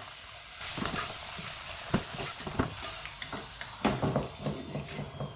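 Half-fried potato pieces sizzling in hot oil in a karahi as a wire-mesh skimmer lifts them out, with scattered crackles and clicks throughout.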